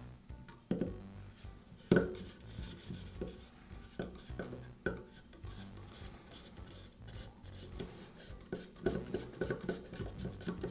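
Carbon-brush caps being fitted and turned with a screwdriver in a Makita power scraper's motor housing: scattered small clicks and knocks, the sharpest about two seconds in.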